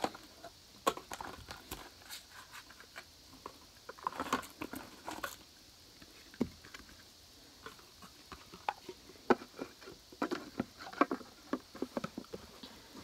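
Small objects being handled on a table: irregular clicks, taps and rustles, busiest in two clusters, about four seconds in and again near ten to eleven seconds.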